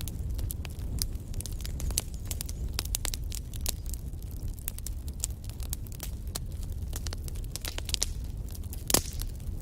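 Wood fire in a fireplace crackling, with frequent sharp pops over a low, steady rumble of flame and one louder pop near the end.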